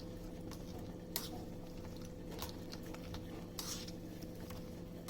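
Spoon stirring oil and soaked herbs in an iron kadai, with irregular soft scrapes and clicks against the pan.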